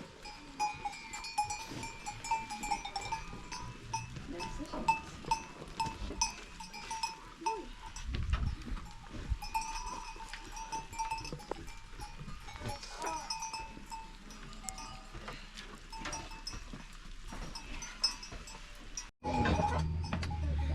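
Livestock neck bells clinking and ringing over and over, as from a herd of goats or sheep moving about. The sound cuts off about 19 seconds in, and a louder, lower sound takes over.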